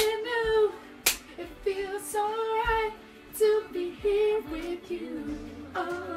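A young woman singing loudly along to a song, in short held phrases with brief pauses between them, her voice close and unaccompanied-sounding in a small room.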